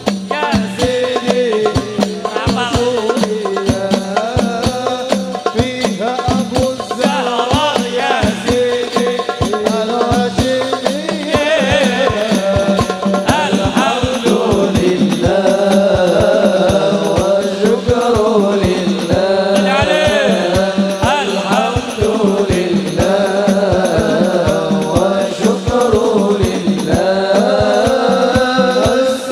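Sholawat (Islamic devotional song) in Arabic, sung by lead vocalists and a group, over steady hand-drumming from a hadrah ensemble of frame drums.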